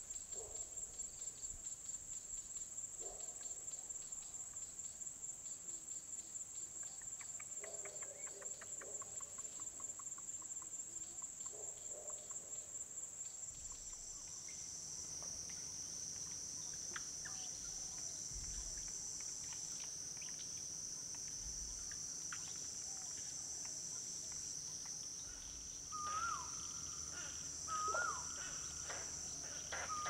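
Insects shrilling steadily at a very high pitch, first as a fast pulsing trill, then, about halfway through, as a smoother, slightly lower drone. Near the end a bird gives a short whistled call that rises and then drops sharply, three times about two seconds apart.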